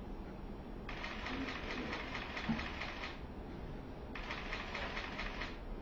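Two bursts of rapid, even mechanical clicking, the first about a second in and lasting about two seconds, the second near the end, over a steady low hum.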